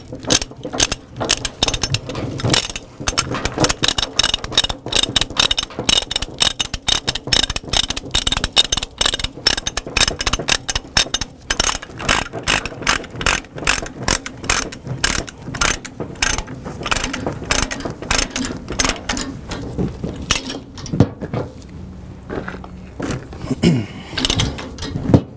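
Ratchet chain load binder being cranked to tighten a tie-down chain: a long run of sharp ratchet clicks, several a second, thinning out about twenty seconds in.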